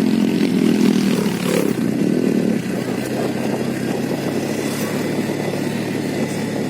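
Motor vehicle engine running, louder for the first couple of seconds and then settling to a steady hum.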